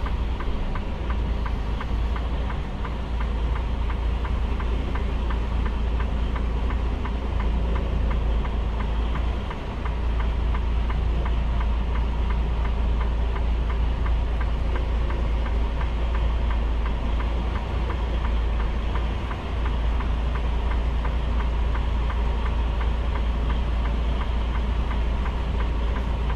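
Semi-truck diesel engine running at low idle, heard from inside the cab, as the tractor-trailer reverses slowly into a loading shed. It is a steady low drone with a fine diesel clatter and dips briefly twice.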